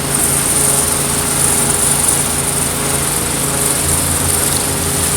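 Engine-driven hot-water pressure washer running steadily: a constant engine hum with a steady high hiss.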